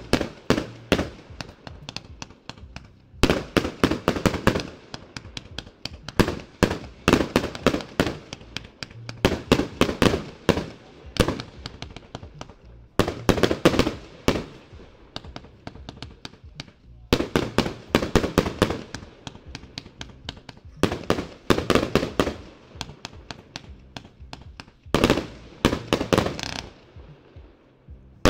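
A 63-shot, 25 mm consumer fireworks cake (battery) firing: rapid volleys of shots and aerial bursts in clusters separated by brief pauses. The firing stops shortly before the end.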